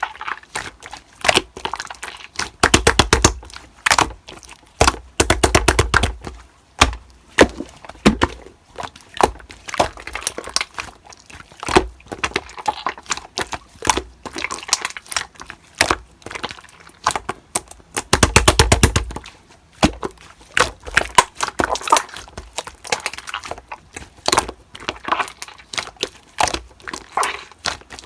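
Slime being squeezed, pressed and stretched by hand, making dense runs of crackling and popping clicks, with heavier clusters about three and five seconds in and again around eighteen seconds.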